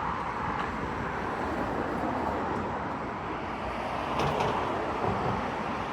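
Steady noise of road traffic, cars passing along the road.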